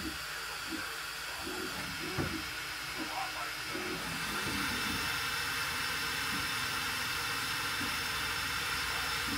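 Bambu Lab H2D 3D printer running its initial machine calibration: a steady fan hiss with motor tones underneath, growing a little louder about four seconds in.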